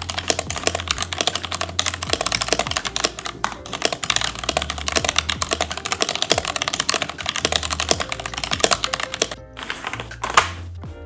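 Fast typing on an Epomaker Theory TH68 mechanical keyboard in its stock form, a dense run of keystrokes that stops about nine seconds in, followed by one louder clack near the end. Background music with a steady bass runs underneath.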